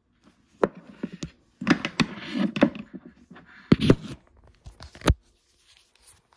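Handling noise: an irregular string of light knocks and clacks as hard objects are set down and moved about, with the phone camera itself being handled.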